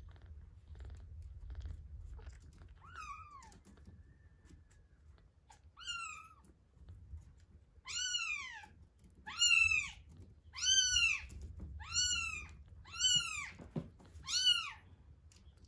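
One-week-old kitten mewing in high, thin cries, each rising then falling in pitch. Two are spaced apart, then six louder ones come in a quick regular run, about one a second.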